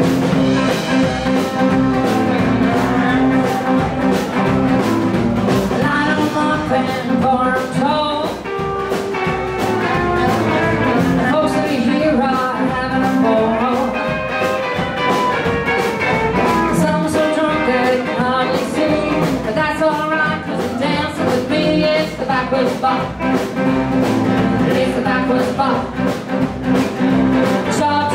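Live blues band playing at a steady beat: electric and acoustic guitars over drums, with a woman singing.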